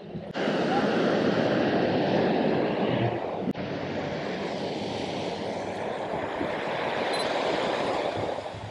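Steady rush of wind and sea water, with wind buffeting the microphone; it starts abruptly just after the beginning and holds fairly even.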